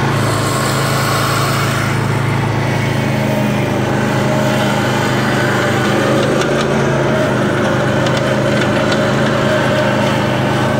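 Craftsman Z6000 zero-turn riding mower's 22-horsepower engine running steadily as the mower drives across the lawn, with a second, higher hum joining about three seconds in.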